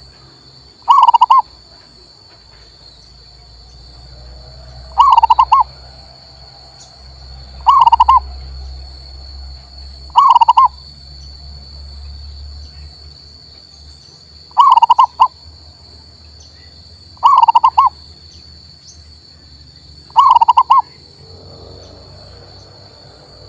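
Male zebra dove (perkutut) singing: seven short, loud cooing phrases, each about half a second long, repeated every few seconds.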